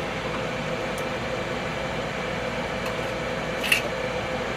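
Steady hum of an air fryer's fan running, with a few short, sharp snips of kitchen shears cutting through chicken wing joints; the loudest snip comes near the end.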